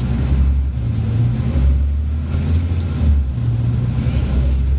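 Scania N94UB single-deck bus's diesel engine running under way, heard from inside the passenger saloon as a low drone that shifts slightly in pitch a few times.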